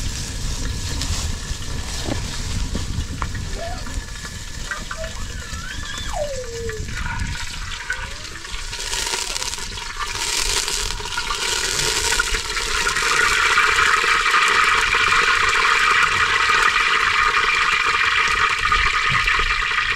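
Steady rush of water, growing louder about twelve seconds in.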